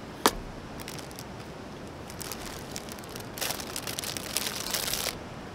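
A plastic carrier bag crinkling and rustling as it is rummaged through, in bursts that are thickest from about halfway to near the end. A single sharp click comes just after the start.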